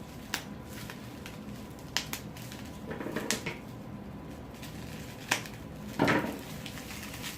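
Bubble wrap being handled and popped: a handful of sharp single pops spread a second or more apart, with plastic rustling between them.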